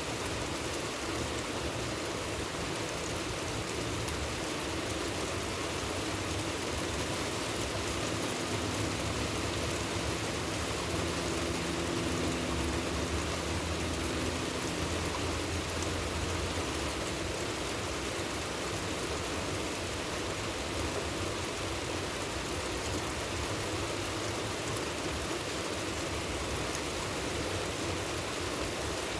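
Steady rain falling, an even hiss of rain and running water. A low hum swells faintly in the middle and then fades.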